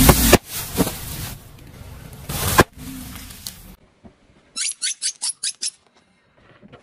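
Objects crushed under a car tyre, with loud cracking and crunching and one sharp crack a little before halfway, then a quick run of about seven short high squeaks, each falling in pitch.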